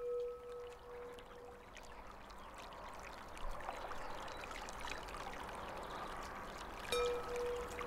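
Water flowing steadily in a stream, with a struck bell ringing one clear tone that fades over the first second or two. The bell is struck again about seven seconds in.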